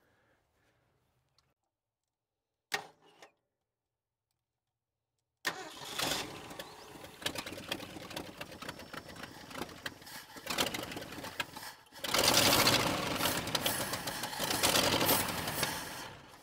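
1968 Ford F350's 360 cubic-inch FE V8 starting on gasoline poured into the intake: it comes in about five seconds in, runs louder from about twelve seconds in, then fades near the end.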